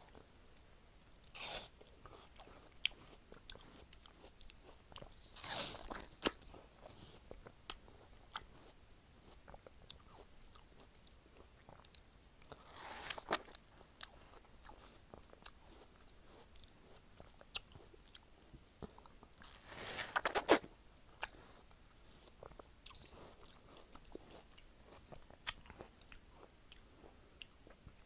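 Bites into ripe watermelon slices and wet, crunchy chewing, heard as a few separate bursts with quieter chewing and small mouth clicks between. The loudest bite comes about two-thirds of the way through.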